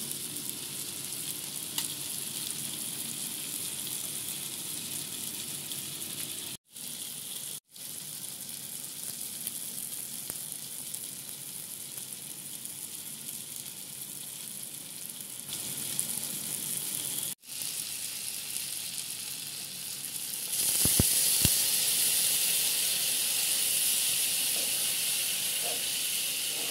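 Small-fish curry with green beans bubbling and sizzling in a frying pan as a steady hiss. About three-quarters of the way through the sizzle grows louder, and near the end a spatula stirs the pan.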